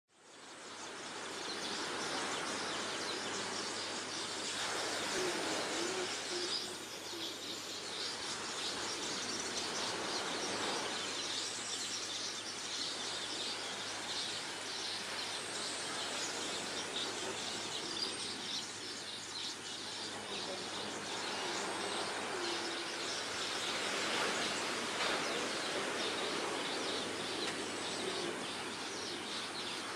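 Outdoor ambience of birds calling and chirping over a steady hiss, fading in at the start, with a low hooting call twice.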